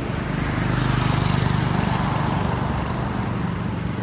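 A motor engine running with a steady low drone, growing louder about a second in and then easing off, as of a vehicle passing.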